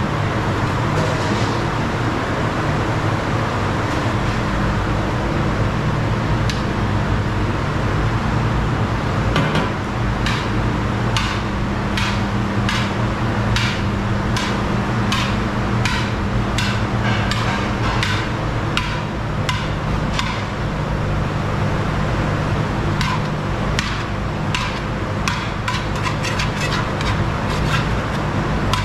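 A metal spoon and skimmer knocking and scraping against the rim and sides of a large aluminium cooking pot, in irregular clusters of sharp taps from about ten seconds in, over a steady low hum.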